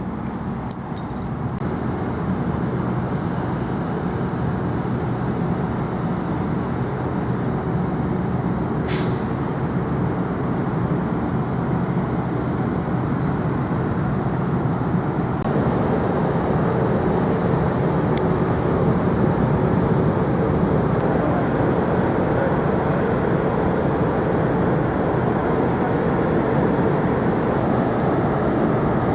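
Steady low engine drone that steps up slightly in level about halfway through, with one brief high hiss about nine seconds in.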